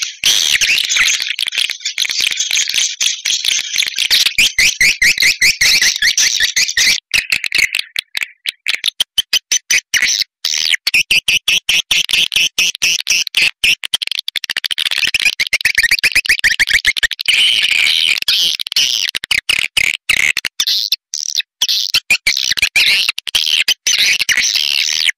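Swiftlet call recording, the kind played from speakers to lure swiftlets into a nesting house: dense, high-pitched chirping and twittering with rapid clicking trills, broken by short gaps several times.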